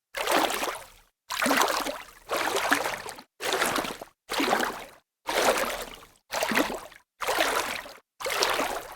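Water splashing, heard as nine short separate splashes about one a second. Each starts suddenly and dies away, with dead silence between them.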